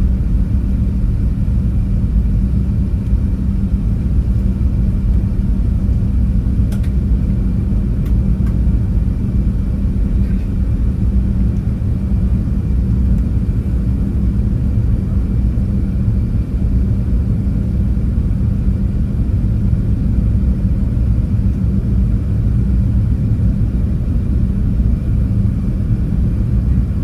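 Steady low cabin rumble of an Airbus A380-800 climbing after takeoff, heard inside the cabin at an upper-deck window seat: engine and airflow noise with a faint steady high whine above it.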